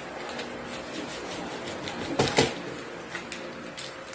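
Plastic-gloved hands handling small foil seasoning sachets and working raw chicken pieces in a plastic basin: light crinkling and rustling with small clicks, and a louder crackling rustle about two seconds in.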